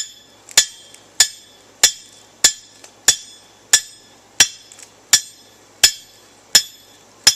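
A hammer striking metal in a steady rhythm, about twelve blows at roughly one and a half a second, each blow ringing briefly.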